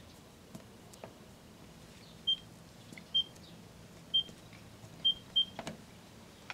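Kenmore microwave's keypad beeping as the cooking time is entered: five short, identical high beeps, the last two close together, followed by a sharp click near the end.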